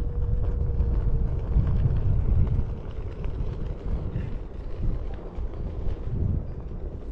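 Wind buffeting the microphone of a rider on a Onewheel GT electric board riding a trail, an uneven low rumble throughout. A faint steady whine sounds for the first few seconds, then fades.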